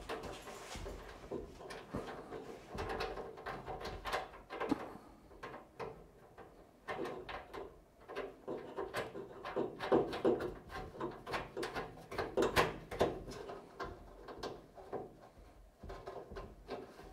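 Irregular small clicks, taps and scrapes of hands working a strain relief cable clamp into the sheet-metal wiring box of a stainless steel range hood, with the wires rustling. The taps cluster most densely around the middle and near the end.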